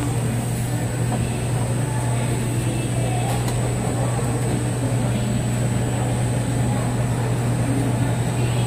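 Steady low mechanical hum of kitchen equipment, even and unbroken, with a faint high whine above it.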